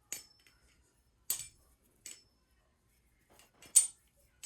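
Baliplus Orca V2 clone balisong being flipped: four sharp metallic clicks as the handles and blade meet, the loudest near the end, some trailed by a short high metallic ring.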